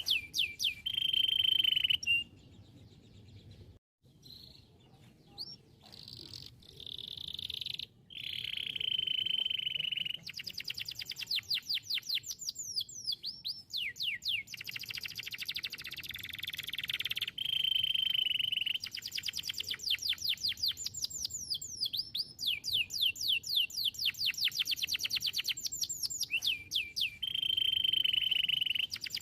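A canary singing: rapid trills of quick repeated notes alternating with steady whistled notes, with a short break a couple of seconds in before the song resumes.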